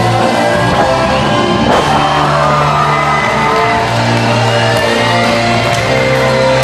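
Loud rock music, with shouts and whoops from the crowd over it.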